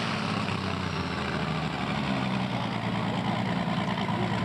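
A pro stock pulling tractor's turbocharged diesel engine running hard and steady under heavy load as it drags the sled down the track.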